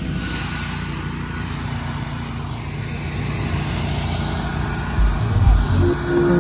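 Steady low rumble of electric scooter wheels rolling on asphalt, with wind noise on the moving microphone. Music with heavy bass thumps comes in about five seconds in.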